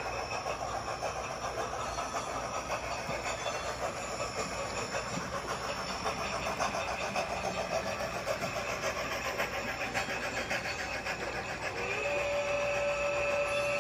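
HO scale model steam locomotive and freight train running: steady chuffing and hiss with the clatter of the cars on the track. A steady high tone comes in near the end.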